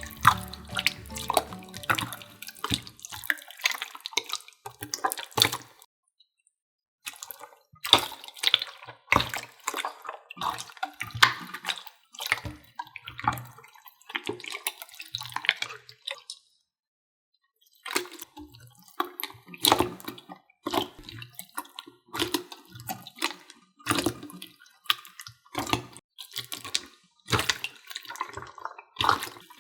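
Clear water slime being squeezed and squished by hand, giving a run of irregular wet squelches, clicks and drips, with two short silent breaks.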